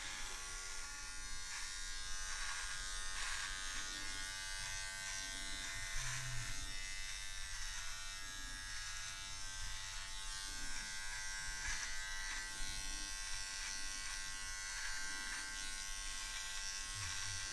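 Electric beard trimmer running with a steady buzzing hum as it is worked through the beard, cutting off stray hairs.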